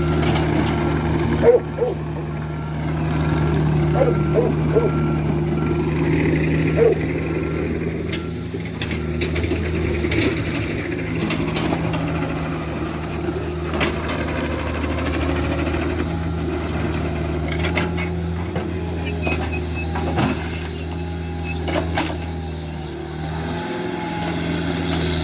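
Excavator engine running steadily under load, with scattered clanks and knocks from the machine working dirt. A repeating beep sounds at an even pace over the first eight seconds or so.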